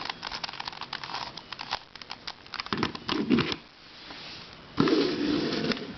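Plastic twisty puzzle being handled: a quick run of light, irregular clicks and crinkling that dies away about three and a half seconds in.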